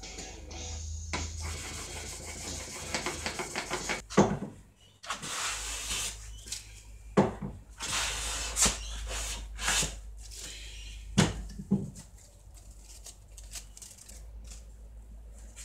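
Hand plane with a freshly honed Veritas blade taking strokes along a pine board, each a short scraping swish as the blade lifts a long thin shaving. The strokes come at uneven intervals over several seconds. Before them there are a few seconds of steady rubbing and a single sharp knock.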